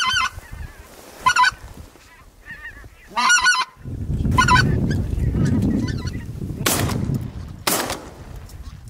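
A flock of wild geese honking as it flies overhead, the calls coming in short clusters several times. A low rumble runs through the middle, and two loud bursts of noise come near the end.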